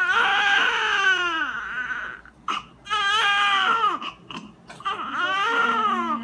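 Newborn baby crying: three long wails, each starting high and falling in pitch, with short gasping breaths between them.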